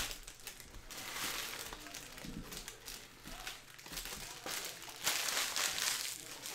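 Foil trading-card pack wrappers crinkling and being crumpled by hand, in two spells: about a second in and a louder one around five seconds in.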